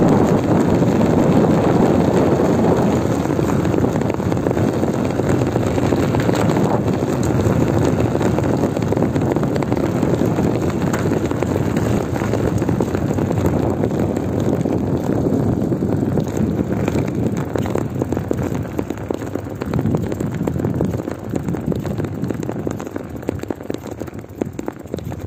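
A mountain bike's flat rear tyre rolling on pavement, the deflated tyre squashed between rim and road making a continuous dense rumble, mixed with wind on the microphone. It grows quieter toward the end as the bike slows.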